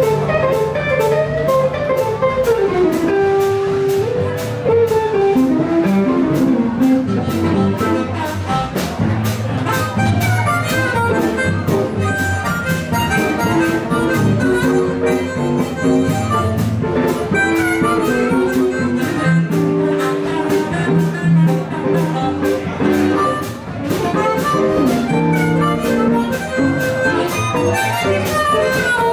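Live blues band playing: an amplified harmonica cupped to a microphone plays bending lead lines over electric and acoustic guitars and a drum kit keeping a steady beat.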